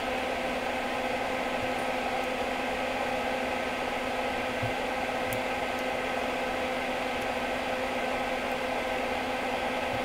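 Soldering fume extractor's fan running, a steady whir with a constant hum.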